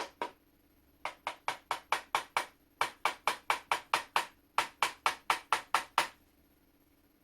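Light hammer taps on a punch, in three quick runs of about eight taps each, roughly six a second, driving a rusted-in part out of an old flintlock shotgun lock. The part is stubborn.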